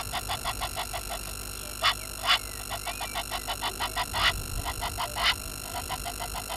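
Frogs calling: fast trains of short clicking notes, about six or seven a second, broken by a few louder single notes.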